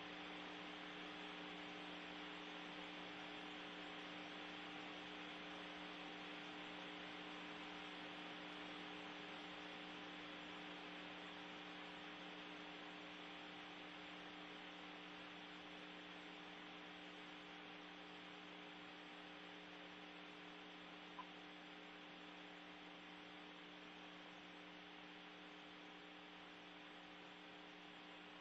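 Faint steady electrical hum with hiss in the audio feed, and one brief click about 21 seconds in.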